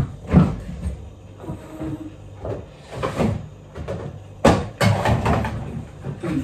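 Groceries being put away in a side-by-side fridge-freezer: its door opening and packages set down, a string of knocks and clunks. The loudest two come close together a little past halfway through.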